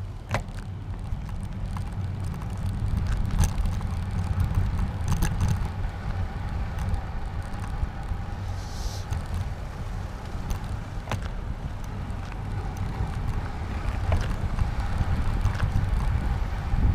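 Steady low rumble of wind buffeting and road vibration on a camera riding on a moving bicycle, with a faint steady whine and scattered sharp clicks and rattles from bumps in the road surface.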